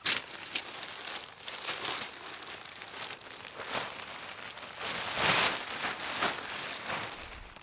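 Tent fabric rustling and crinkling as it is handled, in irregular swishes, the loudest about five seconds in.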